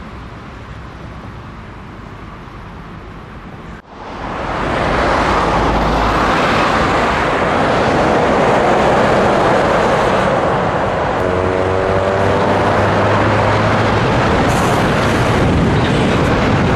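Scania V8 truck under way, its engine running under a dense steady rush of road and wind noise. The sound cuts out briefly about four seconds in, then comes back much louder and stays steady, with a few clear engine tones standing out for a few seconds in the middle.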